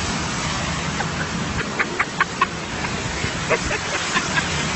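Steady rush of water spray from a car ploughing through deep floodwater on a road. Two quick clusters of short, high-pitched cries cut through it, one about two seconds in and one near the end.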